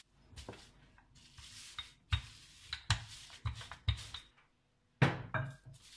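Wooden rolling pin rolling and knocking on a marble counter as bulgur kibbeh dough is flattened under a plastic sheet, with plastic crinkling. Several sharp knocks, the loudest about five seconds in.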